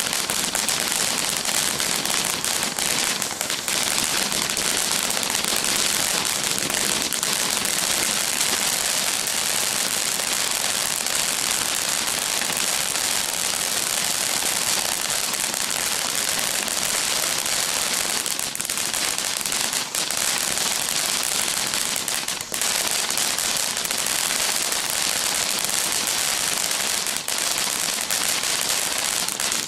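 Consumer firework crackling and hissing without a break: a dense, even spray of tiny crackles at a steady level, stopping suddenly at the end.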